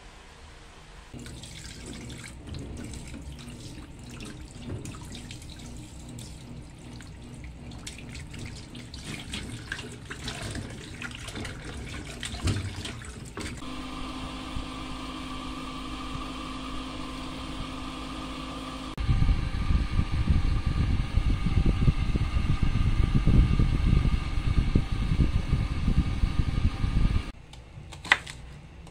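Water running from a tap into a sink or basin, loudest in the last third before shutting off abruptly, with a single sharp knife click on a wooden cutting board near the end.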